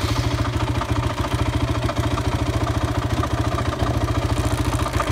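Honda TRX450R ATV's single-cylinder four-stroke engine idling steadily right after being started, with a fast, even beat.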